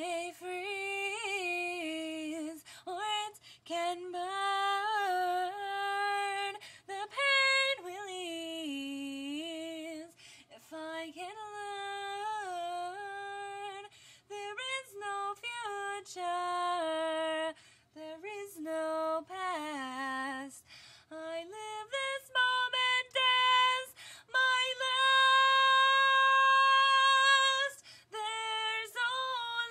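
A woman singing a show tune a cappella, her voice wavering with vibrato; she holds one long, loud note near the end.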